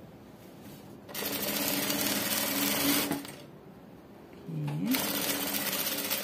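Industrial sewing machine stitching a seam in two runs of about two seconds each, with a pause between them; a short rising whine from the motor comes just before the second run.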